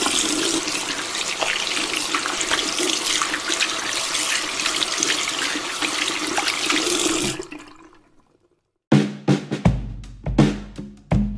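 Tap water running from a faucet over hands being washed, fading out about seven seconds in. After a second of silence, music with a drum-kit beat starts near the end.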